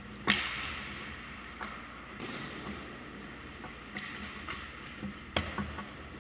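Ice hockey practice shots: a sharp crack of stick and puck, followed by a hissing scrape of skate blades on the ice that fades over about a second and a half. A second sharp crack comes about five seconds in, with a couple of lighter clacks just after, over a steady low hum.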